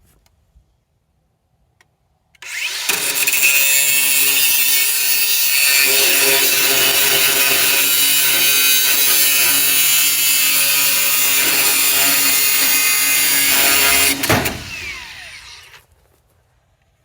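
Angle grinder starts a little over two seconds in and grinds through steel combine elevator chain, running steady and loud for about twelve seconds, then is switched off and winds down.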